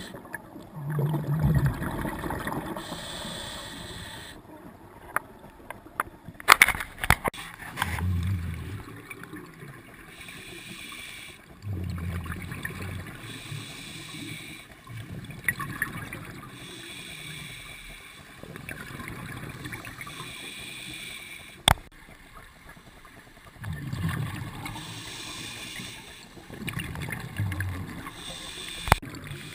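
Underwater scuba breathing through a regulator: slow breaths every few seconds, each inhale a hiss and each exhale a burst of gurgling bubbles. A few sharp clicks stand out, a cluster about a quarter of the way in and single ones later.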